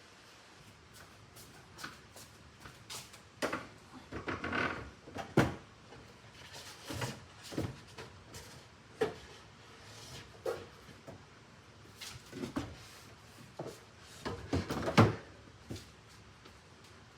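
Scattered knocks and clatters of wooden pieces being handled and set down, in irregular groups, with the loudest knocks about five seconds in and near the end.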